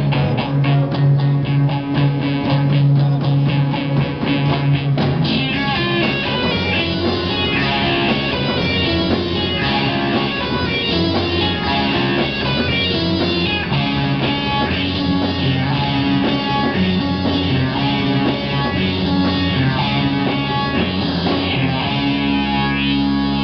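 Live rock band playing amplified: electric guitars, keyboard and drum kit. A fast, driving section gives way about five seconds in to a part with more melodic guitar lines.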